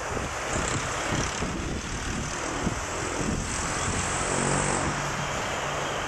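Steady engine noise, a dense rushing drone, with a low steady hum coming in about halfway through.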